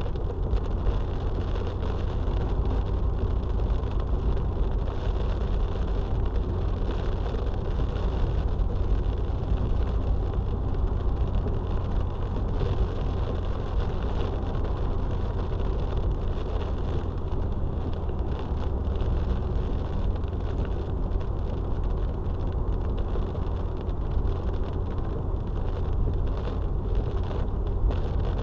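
Steady driving noise of a car heard from inside the cabin through a dashcam's microphone: a continuous low road and engine rumble with tyre hiss.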